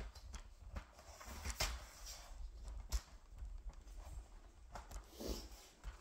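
Faint handling noise: scattered light knocks and rustles over a low rumble as a hand-held camera is moved around.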